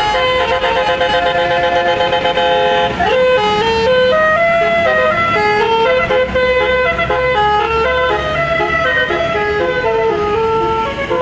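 Bus 'basuri' telolet musical horn playing a melody. A held multi-note chord for about the first three seconds, then a run of short notes stepping up and down.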